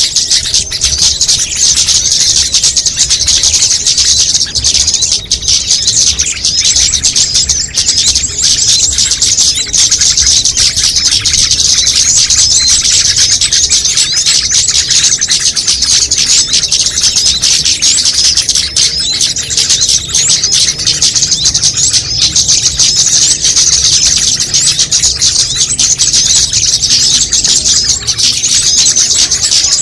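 Dense, continuous high-pitched chirping and twittering of many small songbirds calling at once, a mixed small-bird lure recording.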